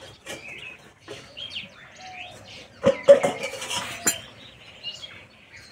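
Stainless steel lid lifted off a steaming pot and set down, a few metallic clanks with the loudest about three seconds in. Birds chirp in the background.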